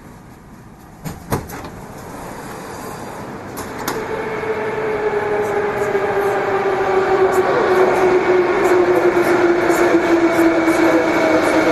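Moscow metro 81-765 'Moskva' train pulling away. Two knocks come about a second in. From about four seconds the traction drive's whine sets in, several tones together that slowly fall in pitch, over running noise that keeps growing louder.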